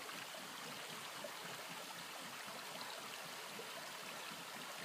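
Faint, steady rush of flowing creek water, muddy and running high after heavy rain.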